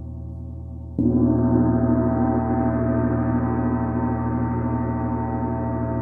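A 30-inch Paiste Symphonic gong, already ringing, is struck once with a padded mallet about a second in. The deep ring swells, its higher shimmer builds up over the next second or two, and then it rings on, slowly fading.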